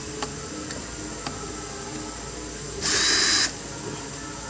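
Power drill-driver running in one short burst of under a second, driving a terminal screw on a magnetic contactor, with a few faint clicks before it.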